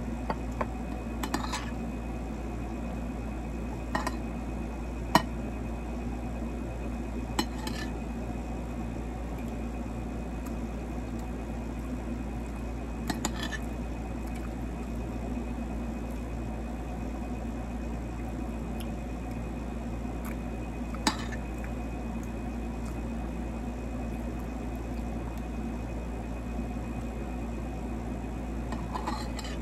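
Metal spoon and fork clinking and scraping against a ceramic plate while eating, a few scattered sharp clinks with long gaps between them, over a steady background hum.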